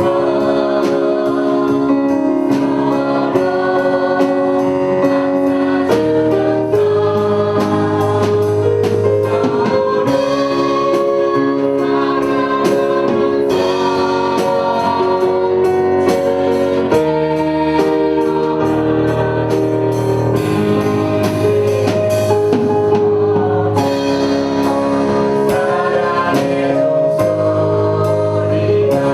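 Church choir singing a Korean gospel hymn in held chords, with instrumental accompaniment that strikes a beat under the voices.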